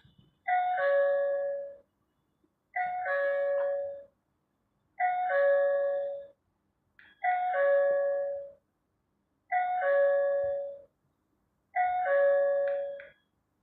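Electronic doorbell chime ringing over and over: a two-note falling ding-dong, six times, one about every two seconds. It rings as soon as the device is paired to Wi-Fi and working.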